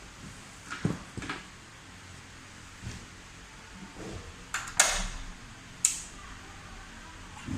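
A series of irregular sharp clicks and knocks, as of hard parts being handled on an electric pallet truck. The loudest come about five and six seconds in.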